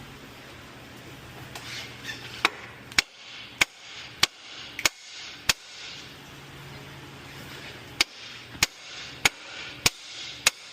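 A hammer striking the steel steering knuckle to break a tapered ball joint stud loose. The blows come in two runs of sharp metal hits about 0.6 s apart: six, a pause, then five more.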